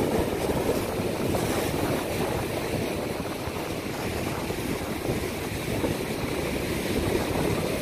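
Steady rumbling noise of wind buffeting the microphone outdoors by the sea, mixed with water and possibly engine sound, fluttering in loudness.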